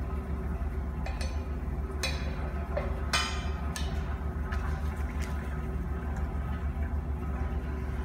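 A steel bar knocks and levers against the quick-release ring at the top of a large diamond core bit on a core drill spindle. It makes several sharp clinks about a second apart, the loudest about three seconds in, over a steady low hum.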